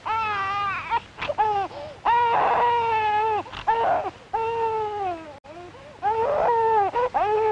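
A baby crying in a string of wails, each about a second long, broken by short catches of breath.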